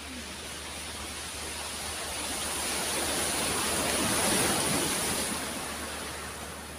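Sea surf breaking on a pebble shore: a steady wash of noise that swells to its loudest about four seconds in as a wave comes in, then eases off.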